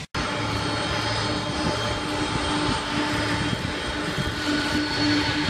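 Jet airliner's engines running as it rolls along the runway: a steady rushing noise with a steady hum and high whine, starting abruptly after a brief dropout.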